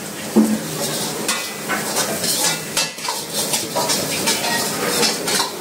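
Steel ladle scraping and knocking against a steel wok in quick, uneven strokes, over the sizzle of diced chicken stir-frying. A sharp knock about half a second in is the loudest.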